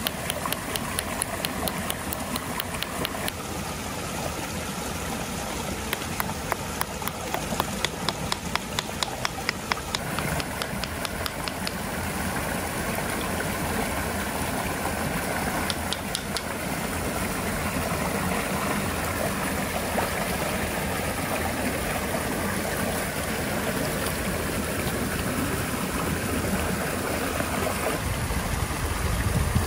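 Hammer stone pressed and twisted in the gravel-filled hollow of a river-stone bearing block: rhythmic gritty stone-on-stone grinding, fast at first, then about three strokes a second, stopping about twelve seconds in. A steady rush of river water runs under it.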